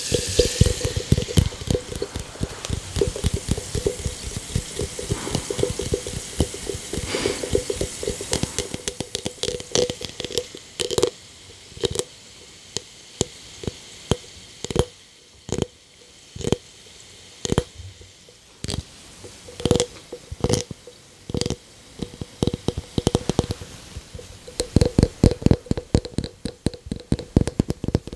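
Bath bomb fizzing in water, with crackling and popping bubbles. The pops are dense at first, thin out to separate pops in the middle, and grow dense again near the end.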